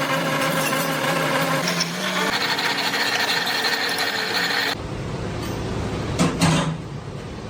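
Machinery running with a steady whine. About five seconds in, the sound changes abruptly to a rougher, lower noise, with two short loud knocks about a second later.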